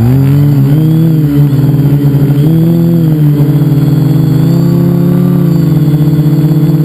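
Multicopter's electric motors and propellers, heard right on the airframe, spinning up together with a quick rising whine and then running steadily at one pitch, which wavers slightly as the throttle shifts.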